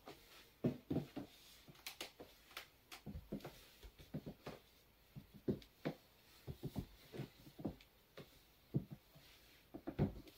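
White platform high heels knocking on a wooden floor as she steps and shifts her weight: a string of irregular short clicks and thuds.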